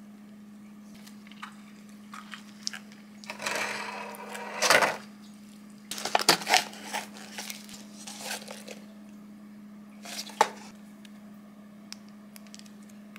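Plastic food container and lid being handled, then a cup noodle's paper lid peeled back: a run of rustles and sharp clicks, over a steady low hum.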